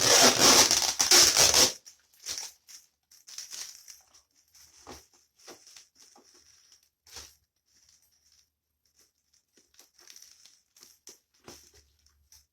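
Parcel packaging being torn open: a loud tearing and crumpling for the first couple of seconds, then scattered quieter rustles and clicks as the wrapping is handled.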